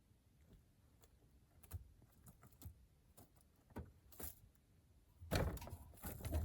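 Scattered light knocks and scrapes, then about five seconds in a burst of scuffling and scrabbling. This is an elderly rabbit lying on its side, struggling and unable to get back up.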